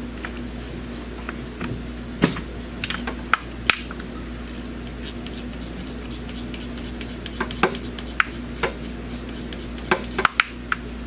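A ratchet wrench clicking in a fast even run, about four clicks a second, with scattered metal tool clinks, as the 12 mm bolt on the thermal expansion valve is backed out. A steady low hum runs underneath.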